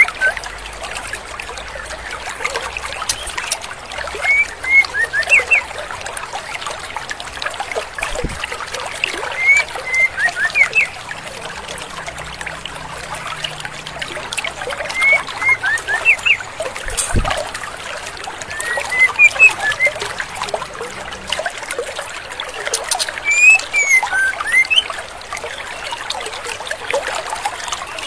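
Female white-rumped shama (murai batu) giving short clusters of quick chirped calls, a group every four to five seconds, over the steady rush of a babbling stream.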